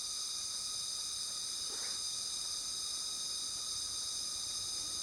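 Steady chorus of insects, several high, even tones held without a break.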